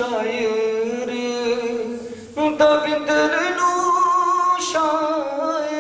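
A man singing a slow melody into a handheld microphone, holding long notes with vibrato, with a short breath break about two seconds in.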